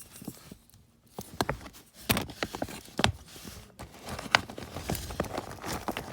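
Small plastic doll pieces and accessories handled by hand: a string of irregular light clicks and taps with some rustling.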